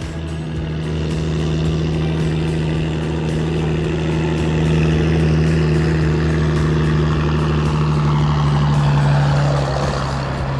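Excavator engine running steadily at a constant speed. Near the end its note sags slightly and a rougher, noisier sound swells briefly.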